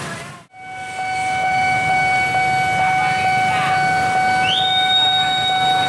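Railway level-crossing alarm sounding with a steady, repeating electronic tone. Near the end, a second, higher tone slides up and holds.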